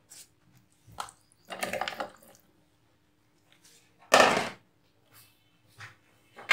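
Raw chicken pieces tipped into a plastic food-processor bowl and the bowl handled: a few short knocks and shuffles, the loudest about four seconds in. The chopper's motor is not running.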